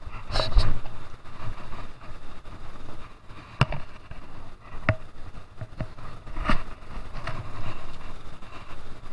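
Shallow, fast stream running, with a few sharp clicks and knocks from handling the reel and a wooden landing net while a small fish is netted. Two of the clicks fall about a second apart near the middle.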